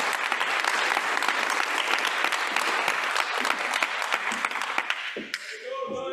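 Audience applauding, a dense clatter of many hands clapping that dies away about five seconds in.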